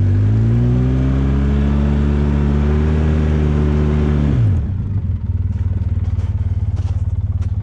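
Polaris Sportsman ATV engine held at high revs under the pull of a heavy towed load in deep snow, then dropping sharply back to a lower idle about four and a half seconds in.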